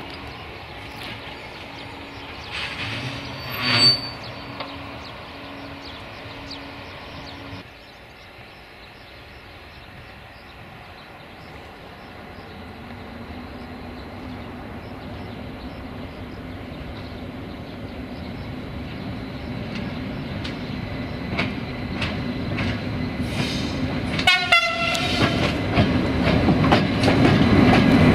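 LTE class 480 electric locomotive no. 480 024-5, with a second electric locomotive behind it, hauling a freight train slowly toward the listener. The running hum and the rumble of wheels on the rails grow steadily louder as the train draws near, ending in clattering wheels as it passes close by. A brief horn note sounds near the end.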